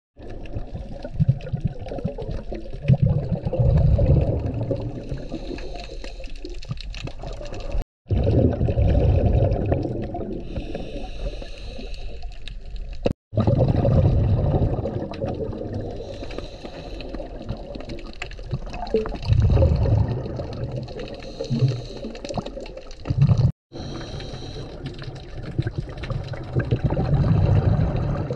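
Scuba diving heard from underwater: loud rushing bursts of exhaled regulator bubbles every few seconds over a steady underwater hiss, with three short breaks of silence.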